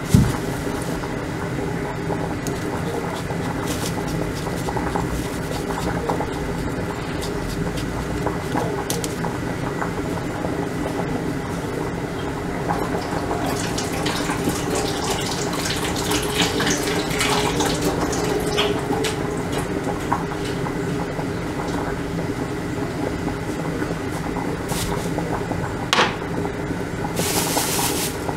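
Steady hum and rushing noise, with a plastic bag crinkling briefly at the start and again near the end.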